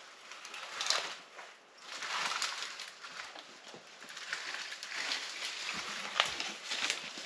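Irregular rustling and crackling of tree branches, with sharp snaps now and then, as a freshly cut wooden pole is worked up into a tree's branches.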